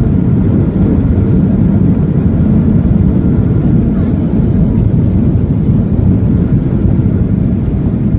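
Boeing 737-900ER heard from inside the cabin during landing: a loud, steady rumble of its engines, airflow and airframe.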